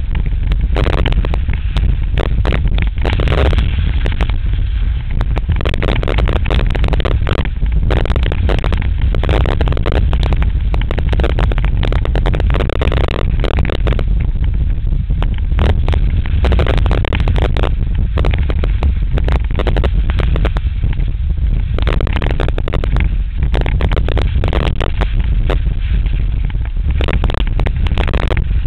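Wind buffeting an action camera's microphone mounted above a skier's knee, a heavy steady rumble, with ski edges scraping and chattering over hard, tracked snow during a fast downhill run.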